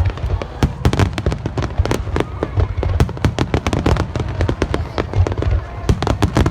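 Fireworks display: a rapid, dense string of bangs and crackles from bursting shells, several a second, over a deep rumble.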